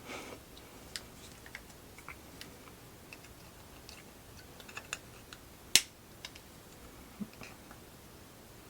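Scattered small clicks and taps of soldering tools and small electronic parts being handled at a workbench, with one sharp click a little before the six-second mark.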